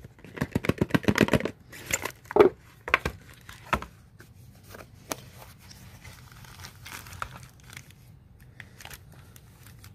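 A small paperboard box being opened by hand and a sunglasses case and cloth pouch lifted out, with rustling and crinkling. A dense patter of clicks and rustle comes in the first second and a half, a few sharper knocks follow over the next two seconds, and after that only occasional light taps and rustles.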